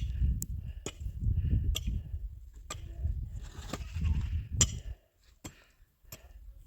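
Sharp knocks, repeated about once a second over a low rumble, stopping about five seconds in.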